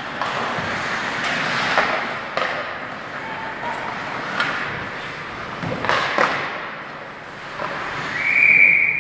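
Hockey skates scraping on the ice, with sharp clacks of sticks and puck. Near the end a referee's whistle sounds in one long, steady blast, the signal that play is stopped.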